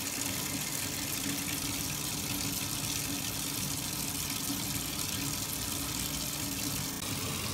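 Steady rushing hiss with a low hum from the vacuum suction drawing through a filtration funnel while the precipitated nickel–ammonia complex is collected.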